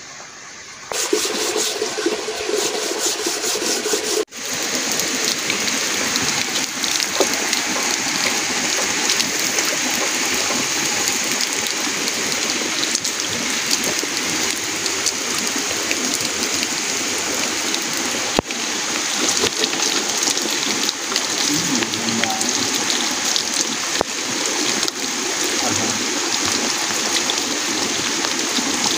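Steady stream of water pouring from a spring spout (dhara) and splashing onto the wet ground, with a plastic bottle held under it near the end.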